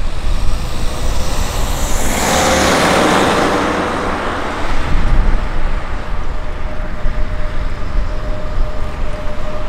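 An electric locomotive hauling a freight train of tank wagons approaches with a steady hum and rumble. A road vehicle passes on the road alongside, its noise swelling and fading about two to four seconds in.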